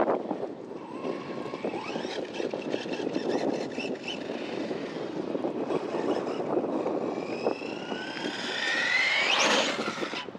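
Brushless electric motor and drivetrain of a Team Corally Syncro 2WD RC buggy whining as it drives. Near the end the whine climbs sharply in pitch as the motor is run up hard.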